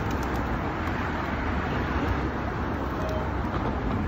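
Steady road traffic noise from a busy street, an even, continuous hum.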